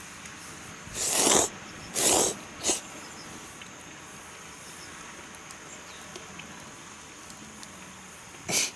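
A person slurping pasta: three short slurps in quick succession about a second in, then one more near the end.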